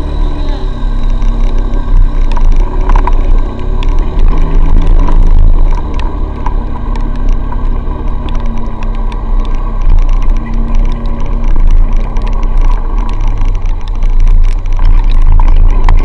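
Small motorbike engine running while riding along a wet road, under a heavy low rumble of wind on the microphone.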